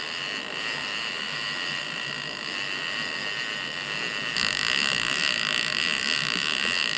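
Steady running noise of a trolling boat under way, with engine and water sounds on deck. It grows louder and brighter about four and a half seconds in.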